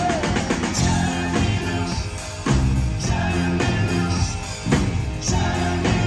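Live rock band playing loud, with a steady drum beat, electric guitar and bass, and a lead vocal.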